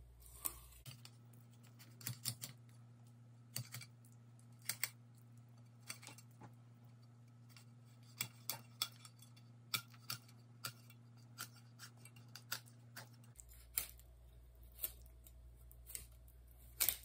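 Fillet knife working through the rib bones of a large trout fillet: scattered small sharp clicks, irregular at about one or two a second, as the blade snicks through bone and taps the cutting board. A faint steady hum lies underneath.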